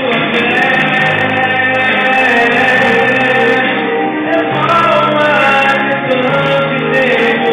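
A man singing a Portuguese-language gospel praise song into a handheld microphone.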